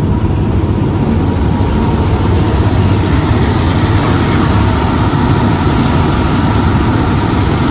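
Malkit 997 combine harvester's diesel engine and machinery running steadily close by: a loud, even low rumble with a thin steady whine above it.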